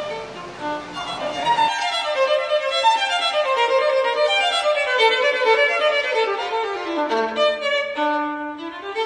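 Background violin music playing quick runs of notes that step downward and then climb back up. For the first second and a half it sits under a noisy room sound, which then cuts off and leaves the violin alone.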